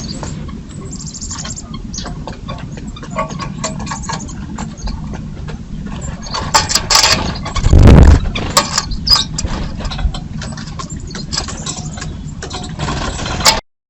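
Birds at a feeder, recorded close to the trail camera's microphone: many sharp taps and clicks over a steady low rumble, with one loud thump about eight seconds in.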